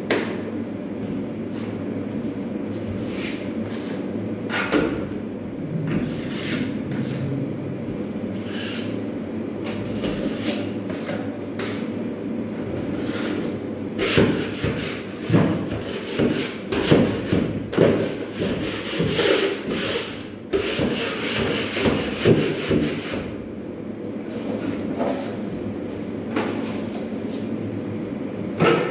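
A hand tool scraping and rubbing across a drywall wall in repeated strokes, thickest in the middle, over a steady hum.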